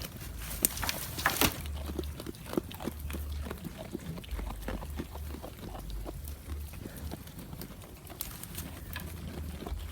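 A goat chewing crunchy food: irregular crisp crunches, with a couple of louder ones early on, over an intermittent low rumble.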